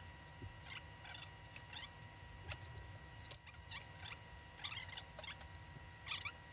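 Knife cutting into a raw whole turkey and the leg being pulled off at the joint: a string of faint, short, squeaky wet crackles of skin, meat and joint, over a faint steady tone.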